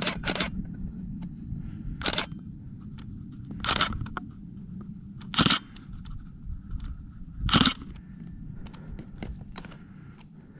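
Camera shutter clicking about six times, roughly every couple of seconds, over a low steady rumble.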